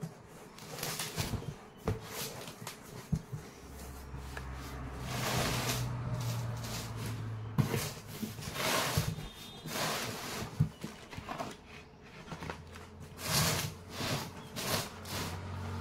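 Cardboard carton flaps being opened and cardboard boxes of firecrackers rustling, scraping and sliding against each other as they are handled, with a few sharp knocks.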